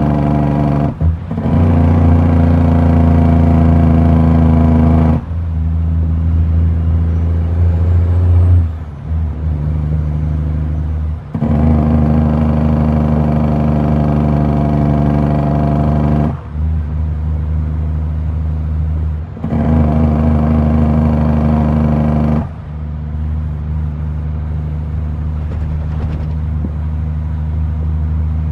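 Diesel dump truck engine heard from inside the cab, running steadily under load. The engine note drops out briefly about seven times and each time comes back at a steady pitch, as the truck is shifted through its gears.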